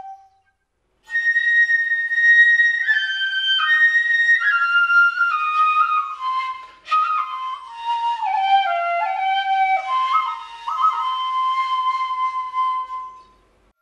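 Background music: a slow solo melody of held notes that begins after a moment of silence, steps mostly downward in pitch, and fades out near the end.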